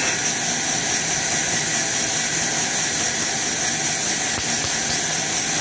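Horizontal band sawmill running, a steady, unbroken machine noise with a strong high hiss.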